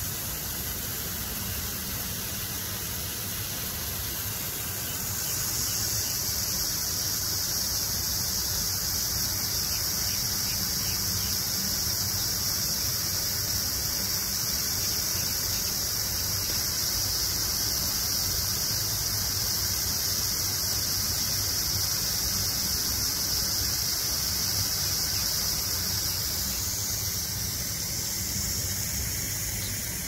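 Lawn sprinkler spraying water over grass, a steady hiss, with a high, shrill, steady sound joining about five seconds in and fading out near the end.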